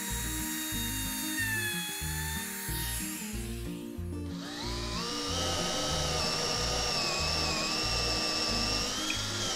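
Makita trim router running at speed as it cuts a decorative profile along a wood edge, a steady high whine; about four seconds in it gives way to a cordless drill boring into wood, its whine rising and then holding steady. Background music with a steady beat plays throughout.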